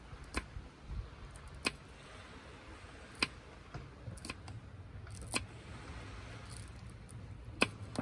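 Knife slicing a green chili pepper on a wooden cutting board: about six sharp chopping knocks at uneven intervals, the last one near the end the loudest.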